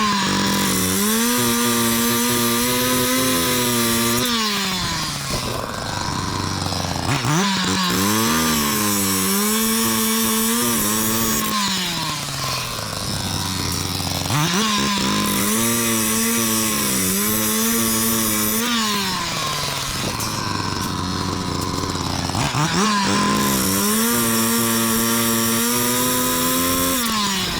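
Small gas engine revved up and held at high speed for about four seconds, then let fall back to idle, four times over, with a hissing, cutting-like noise on top while it is held high.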